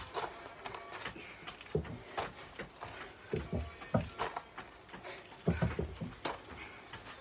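Footfalls of trainers stepping back and forth between a low paving-slab step and wooden decking during alternating lunges: irregular dull thuds about every half second to second, some in quick pairs.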